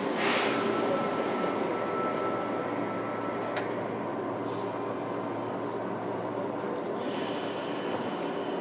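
Inside a JR Kyushu 103 series (1500 subseries) electric train motor car: a steady hum of the car, with a brief hiss of air at the start and a steady high tone that cuts off about three and a half seconds in.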